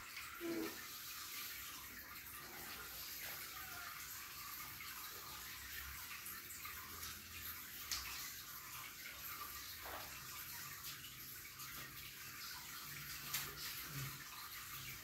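Steady low hiss, like running water, with a few faint taps scattered through it.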